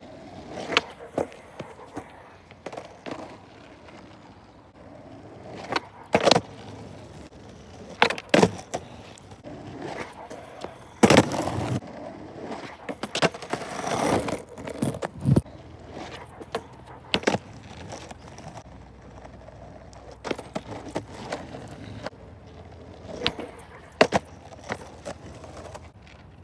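Skateboard rolling on pavement, with sharp clacks of the board hitting the ground a dozen or so times and a louder stretch of rolling in the middle.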